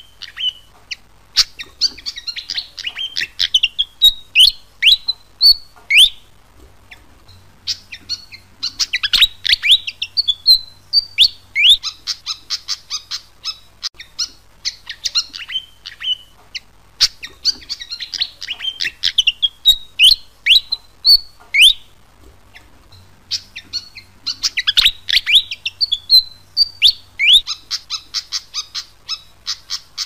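Fantail songbird singing: phrases of rapid, squeaky high notes that slide up and down, each phrase lasting a few seconds and repeated about four times with short gaps between.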